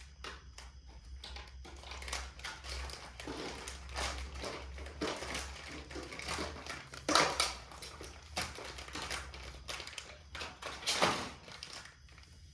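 Packaging rustling and crackling as items are unpacked and handled, with irregular clicks and taps; two louder knocks about seven and eleven seconds in, over a steady low hum.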